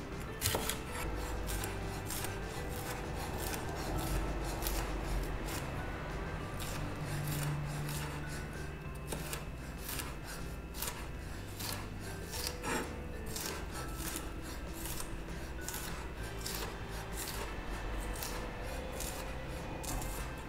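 Chef's knife chopping bell pepper on a wooden cutting board: a long run of quick, irregular knife strokes against the board.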